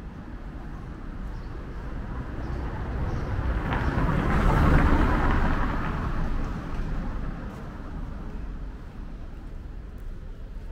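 A motor vehicle passing close by: its noise swells to a peak about halfway through and then fades away, over steady street background noise.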